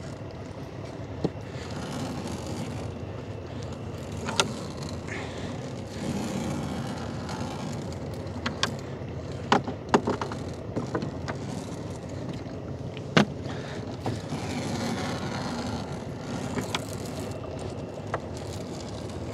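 Gill net being hauled by hand into a small boat: a steady rushing background with scattered sharp knocks and clatters of the net and floats against the hull.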